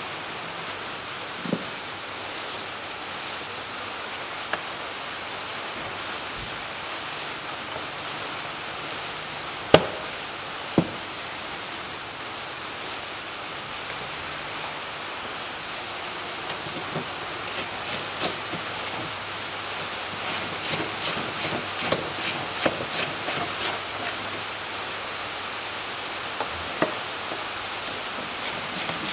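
Steady hiss of rain on the workshop roof. Two sharp knocks come about ten seconds in, and in the second half there are bursts of quick clicks, a few a second, as hands work at the plastic air intake and hose.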